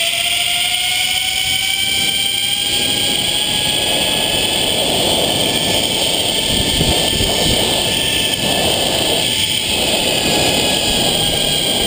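Zipline trolley pulleys running along a steel cable: a loud whine that slowly rises in pitch as the rider picks up speed, levels off, and begins to drop slightly near the end. Wind rushes across the microphone under it, strongest in the middle of the run.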